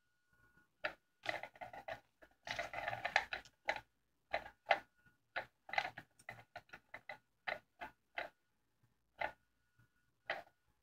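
Battery-powered cat toy working under its fabric cover: irregular clicks and short rattles from its mechanism, denser about three seconds in, with a faint steady high whine in between.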